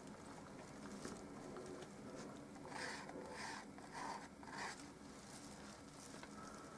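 Paintbrush loaded with thick oil paint stroking across textured canvas: a quick run of about five short, scratchy strokes in the middle, over a faint steady room hum.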